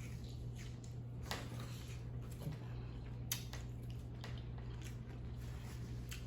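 Quiet chewing and mouth sounds of someone eating soft mac and cheese, with a few sharp clicks scattered through, over a steady low hum.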